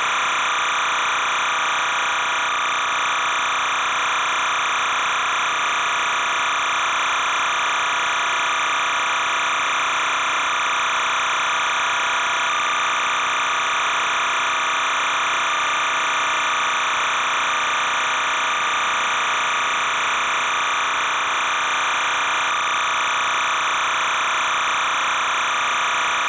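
Steady, unchanging buzzing hiss with no rise or fall. It is the noise of an old videotape recording, and no crowd or game sounds can be picked out.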